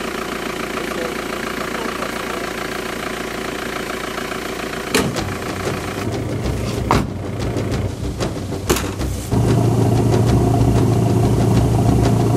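A vehicle engine idles steadily. About five seconds in there is a sharp knock, then a few clicks. From about nine seconds in the engine note becomes louder and deeper.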